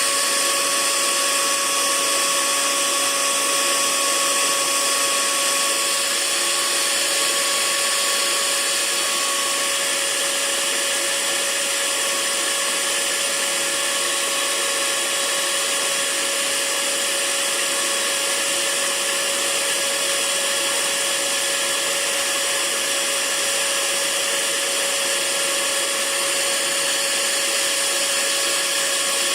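Hair dryer running steadily: a constant rush of blown air with a steady motor whine on top.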